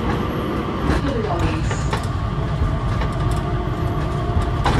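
Changi Airport Skytrain people mover (a Mitsubishi Crystal Mover) running, heard from inside the car: a steady low rumble with a thin, even whine on top.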